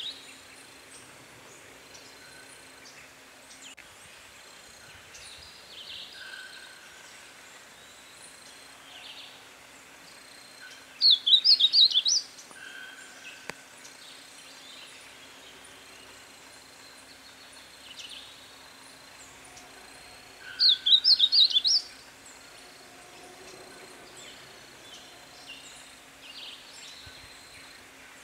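Negrinho-do-mato singing: two loud, quick song phrases of rapidly rising and falling notes, each about a second long, the first about eleven seconds in and the second about nine seconds later. Faint calls of other birds are heard between the phrases.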